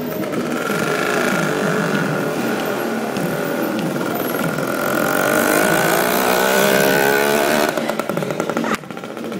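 A loud engine running steadily, its pitch rising in the last seconds before it stops abruptly about eight seconds in.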